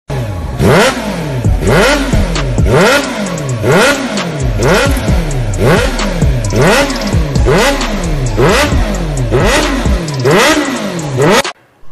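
Intro sound effect of an engine revving, its pitch dipping and climbing again in an even cycle about once a second. It is loud, and it cuts off suddenly near the end.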